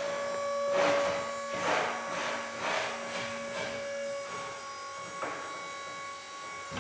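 Electric hydraulic lift motor of a BT stacker truck whining steadily as the forks are raised, with short swishing noises about once a second. The lowest tone of the whine drops out after about four seconds.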